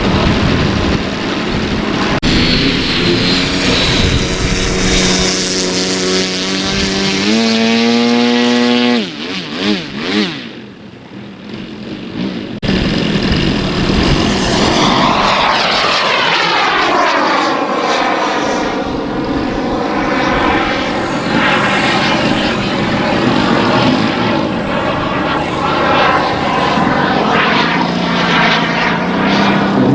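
Propeller-driven RC model airplane engines running. One revs up with rising pitch about eight seconds in, then drops away. After a short lull, a model flies past with its engine pitch falling and keeps droning on.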